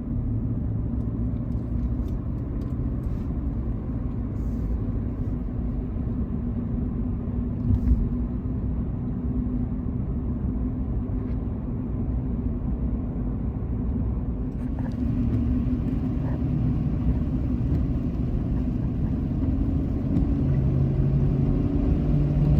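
Pickup truck driving, heard from inside the cab: a steady low engine and road rumble, with one knock about eight seconds in and the engine note climbing near the end.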